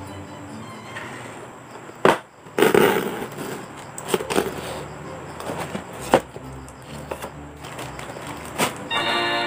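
Cardboard figure box and plastic packaging being opened and handled: a few sharp clicks and a crinkling rustle of plastic, over light background music.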